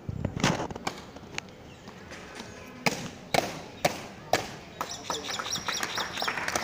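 Ceremonial border guards' boots stamping hard on a concrete parade road, a series of sharp single stamps, several about half a second apart. High rapid twittering joins in the last couple of seconds.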